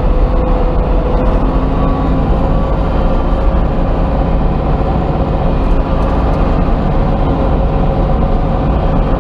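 Front loader's diesel engine running steadily under way, a loud constant drone heard from inside the cab.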